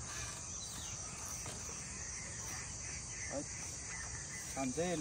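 Faint, steady high-pitched chirring of insects in the background.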